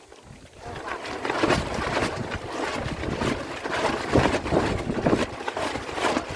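Strong gusty wind buffeting the microphone, jumping up in loudness about a second in and staying loud in irregular gusts.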